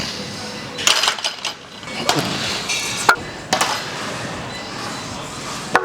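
Metal gym weights clinking and knocking: about six short, sharp strikes spread unevenly over a few seconds.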